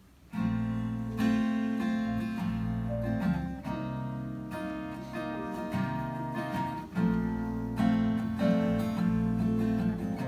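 Acoustic guitar strumming chords, the instrumental introduction to a song, starting about half a second in.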